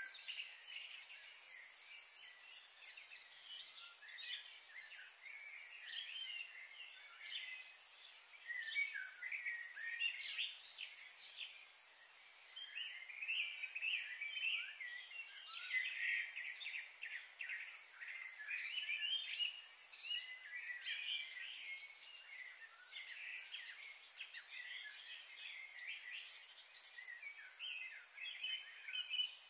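Birds chirping and singing in a busy chorus of many short, overlapping calls and trills, over a faint steady hiss.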